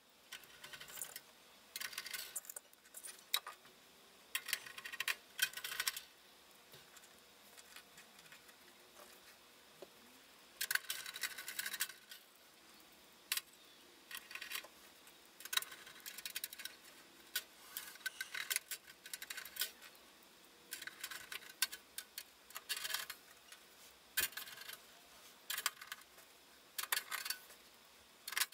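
Hand screwdriver turning screws into the perforated metal top cover of a Heathkit SB200 linear amplifier: repeated short bursts of metal-on-metal scraping and clicking, with small metallic clinks.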